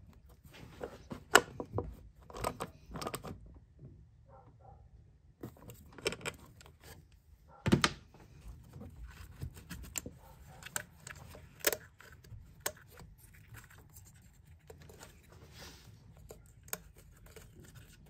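Irregular sharp clicks, knocks and light rattling of hand work under the hood: a 1/4-inch ratchet on the ignition coil's hold-down stud in the first few seconds, then the wiring loom and the coil's plastic connector being handled and pushed on.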